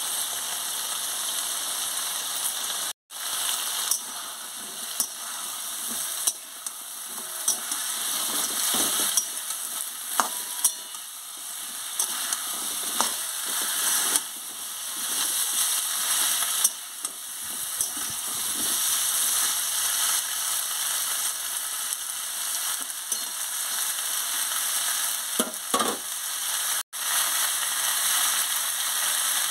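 Pumpkin and potato pieces sizzling in oil in a metal pan, with a steady hiss. A spatula scrapes and knocks against the pan now and then as the vegetables are stirred. The sound cuts out for an instant twice.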